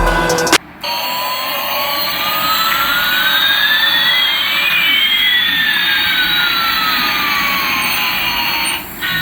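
Jet-engine sound effect: a steady rushing noise with two whines, one climbing and one falling, that cross about halfway through. It follows a short stretch of music that cuts off within the first second.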